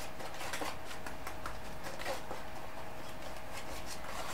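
Wire whisk clicking and scraping against a glass mixing bowl as it cuts lard into flour, in a quick, irregular run of light clicks.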